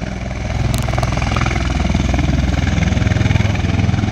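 Aircraft running on the flight line: small propeller planes' piston engines taxiing close by, with a V-22 Osprey tiltrotor's rotors turning behind them. A steady low drone with a fast pulse, growing louder about half a second in.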